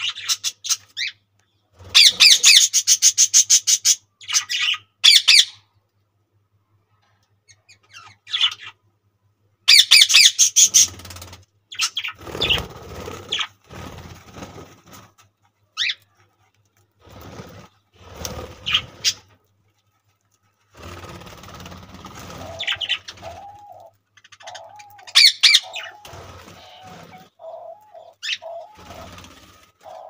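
Budgerigars chirping and chattering in short bursts of fast, high notes, with quiet gaps between; a lower, wavering call joins in during the last several seconds.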